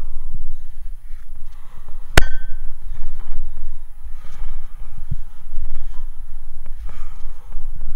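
A single sharp metallic clang about two seconds in, ringing briefly, as metal strikes the steel of a water tower during the climb. Under it runs low, muffled rumbling with occasional bumps close to the microphone.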